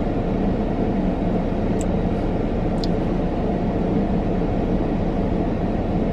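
Steady low rumble inside the cabin of a parked car that is left running, with two faint short clicks about two and three seconds in.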